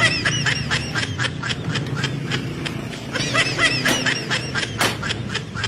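Rapid hammer blows on metal, about five or six a second with a short metallic ring on each, knocking at the motor's bearing, which a circlip holds in place inside.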